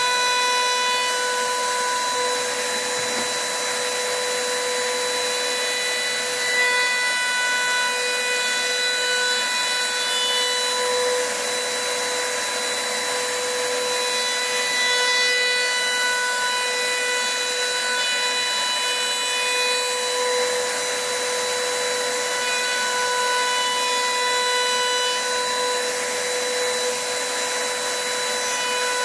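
Table-mounted Makita RTC0700C trim router running with a steady high whine, its bearing-guided bit cutting the edge of a board as it is fed by hand.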